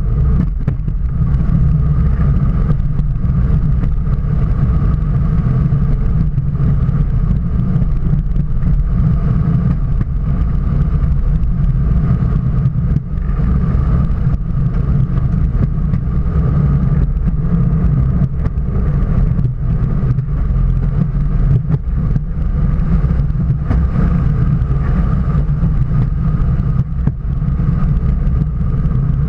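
Railroad motor speeder running steadily along the track: a constant low engine drone with its wheels rolling on the rails and a faint steady whine above.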